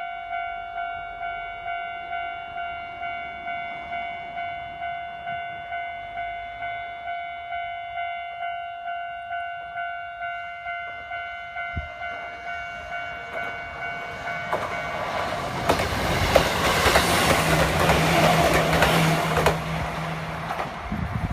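Japanese level-crossing warning bell ringing in steady pulses, about two a second. About fifteen seconds in, a Nagano Electric Railway 2100-series limited express train runs through the crossing for about five seconds, its wheels clattering over the rail joints and drowning out the bell.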